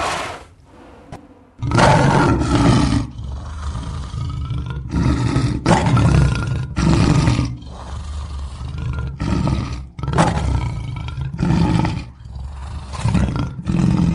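Creature sound effects for the walrus-dog monster Az-i-wu-gum-ki-mukh-'ti: a run of about a dozen deep, rough roars, some short and some longer, following one another with brief pauses.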